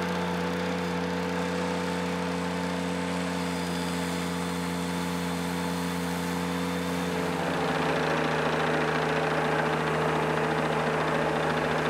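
Ventrac compact tractor's engine running steadily; about seven seconds in its note drops slightly and it grows a little louder.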